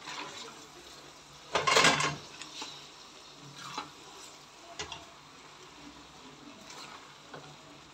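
Cooked spaghetti being tipped into a pot of tomato sauce and sausages and stirred with a wooden spatula: one loud scraping clatter about two seconds in, then a few light knocks of the utensil against the pot.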